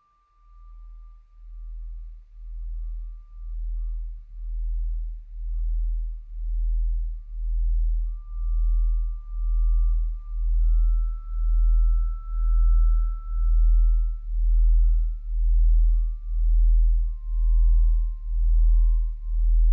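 Electronic ambient sound bed: a deep low drone pulsing about once a second, fading in from silence and growing steadily louder, under a thin, steady high sine-like tone that steps up in pitch about halfway through and drops lower near the end.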